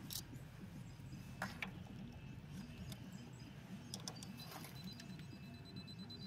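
Faint clicks and rattles of a jump starter's battery clamp being handled and clipped onto a battery terminal, heard over a low wavering hum.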